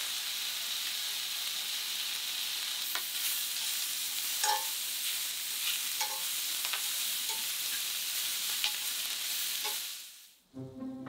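Sausages and chopped bell peppers sizzling in a cast iron skillet while being stirred with metal tongs, which clink against the pan several times. The sizzle drops away about ten seconds in, and music starts near the end.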